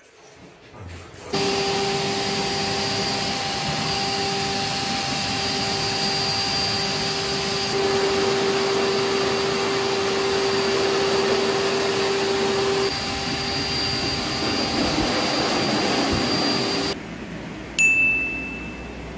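Electric dog blower drying a wet husky's coat, running steadily with a rush of air and a steady motor whine. It cuts off near the end, and a single loud ding follows.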